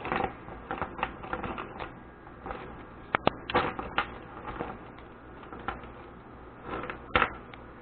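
A metal keychain being handled: irregular small clicks and clinks of keys and clips, with a sharper click about three seconds in and another near the end.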